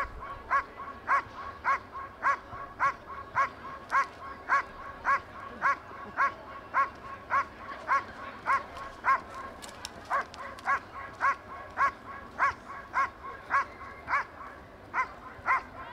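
Dog barking steadily and rhythmically at a protection helper holding a padded sleeve, guarding him: about two barks a second, with a short break past halfway, stopping just before the end.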